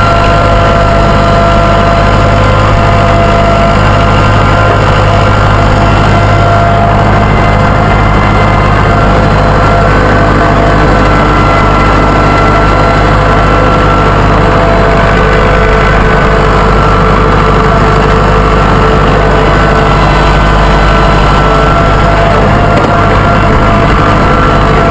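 Massey Ferguson tractor engine running steadily under way, loud and close, its pitch drifting only a little.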